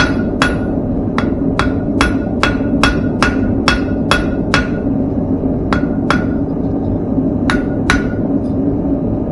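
Hand hammer striking thin square steel on an anvil, drawing out a tapered point: a quick run of about a dozen ringing blows, two or three a second, then a pause and pairs of blows. A steady low rush runs underneath.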